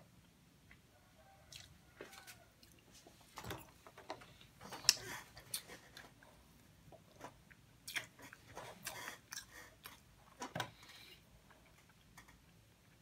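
A person chewing and eating soft sponge cake close to the microphone: irregular mouth clicks and smacks, strongest about five seconds in and fading out near the end.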